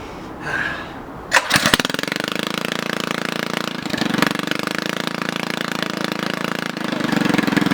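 Predator 212cc single-cylinder four-stroke go-kart engine fitted with a straight-pipe J-pipe race header and no muffler, catching about a second and a half in and then running loudly at a steady idle.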